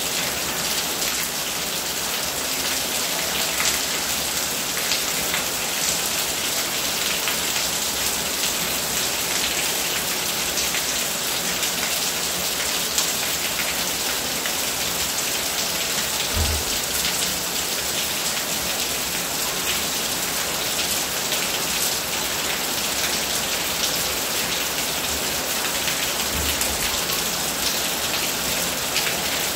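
Steady rain falling and pattering on hard surfaces, with a stream of runoff pouring off a roof edge. Two brief low thumps come about halfway through and again later on.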